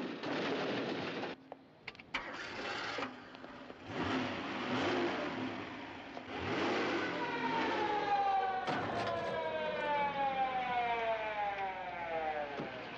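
Car engines starting and revving. Then, from about halfway in, a police siren winds down in one long falling tone. A sharp knock comes about nine seconds in.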